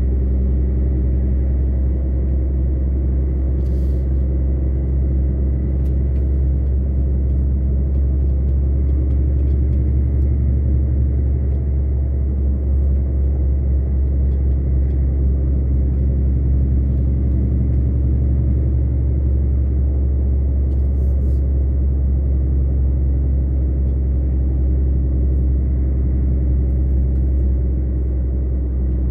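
Truck engine and road noise droning steadily inside the cab while driving, a deep even hum with no shifts or revving.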